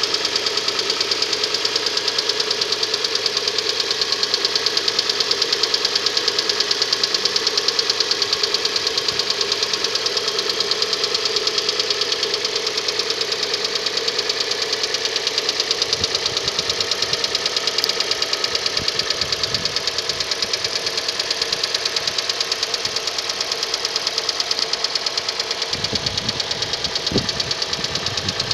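Hyundai ix35's G4NA 2.0-litre four-cylinder engine idling after a cold start, with a steady fast clatter that the owner puts down to timing chain knock from the hydraulic chain tensioner.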